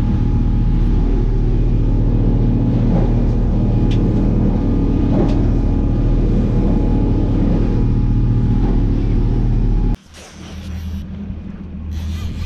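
Fishing boat's engine running steadily under way, a loud low drone with water rushing past the hull. About ten seconds in it cuts off abruptly, leaving a quieter low rumble and some brief rubbing noises.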